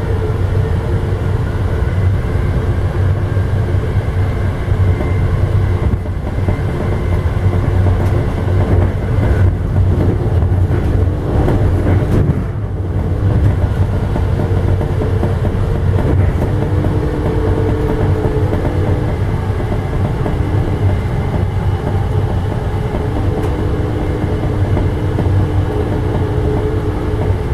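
Steady rumble of an Amtrak passenger train running at speed, heard from inside a car, with faint tones coming and going over it. The level dips briefly about twelve seconds in.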